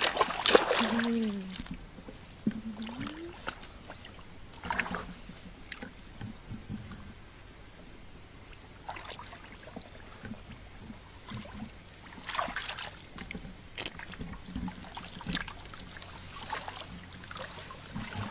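Shallow muddy water splashing and sloshing in scattered bursts as a person wades and gropes in the mud by hand. A few short rising and falling voice sounds come in the first few seconds.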